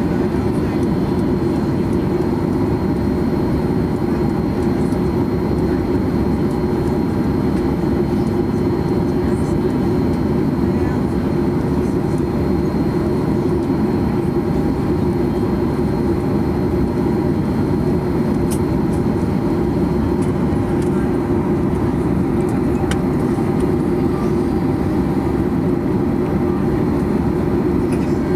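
Cabin noise of a Boeing 737-800 taxiing at idle, its CFM56-7B engines running as a steady low rumble with a few faint steady tones above it, heard from inside the cabin.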